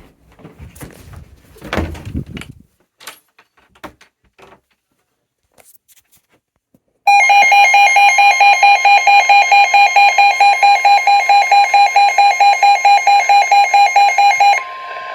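Weather alert radio sounding its alarm: a loud, rapid beeping, about five beeps a second, for about seven seconds. It then drops to the quieter steady warning tone that NOAA Weather Radio plays before it reads out a severe thunderstorm warning.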